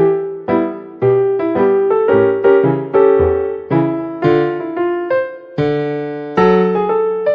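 Background piano music: a gentle melody of struck notes with chords beneath.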